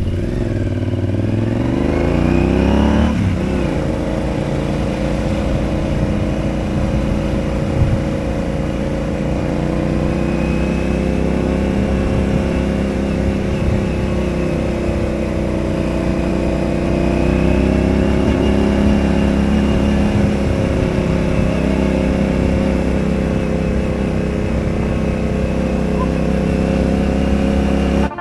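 Yamaha Ténéré 700 parallel-twin motorcycle engine under way: its note climbs over the first three seconds as the bike accelerates, then holds fairly steady with small rises and falls.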